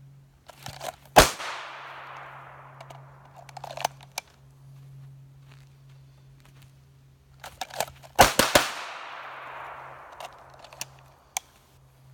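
Glock 21 .45 ACP pistol fired: a single shot about a second in, then a fast string of about three shots near the end. Each shot is followed by a long echoing tail.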